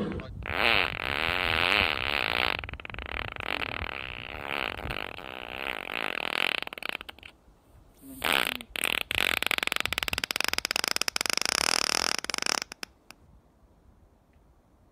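Two long fart sounds. The first wobbles up and down in pitch for about seven seconds; after a short pause a second, rapidly rattling fart runs about four seconds and cuts off suddenly.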